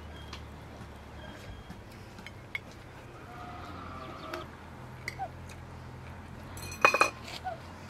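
Forks and spoons clinking now and then on plates during a meal, over a low steady hum, with faint short animal calls in the background and one brief louder sound about seven seconds in.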